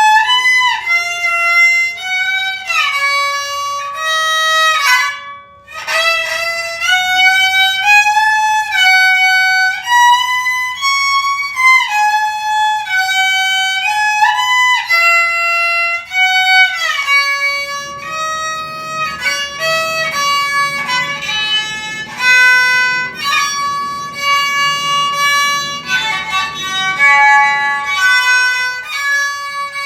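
Kokyu, a Japanese bowed string instrument, playing a slow melody with notes that slide into one another and a brief break about five seconds in. From about halfway through, a softer, lower accompaniment sounds beneath it.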